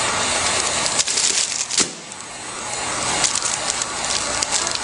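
Handheld heat gun on its low setting blowing with a steady rushing hiss, while the plastic shrink film crackles sharply now and then as it heats and tightens around a book.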